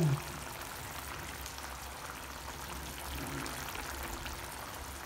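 Coconut-milk frog stew simmering in a pan, a steady soft bubbling and crackle over a low hum.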